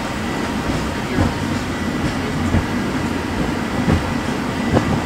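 Peak Tram funicular car running up its track, heard from inside the car: a steady low rumble from the wheels on the rails, with a few sharp knocks about a second apart.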